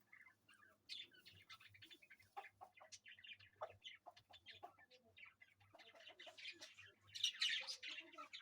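Domestic hen with her three-day-old chicks: the chicks give many short, high peeps and the hen clucks softly, with a louder rustle about seven seconds in.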